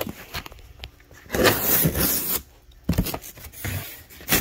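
A knife slicing and scraping through a cardboard box, with the cardboard rubbing and a few sharp knocks as the box is worked open. The longest scrape comes about a second and a half in.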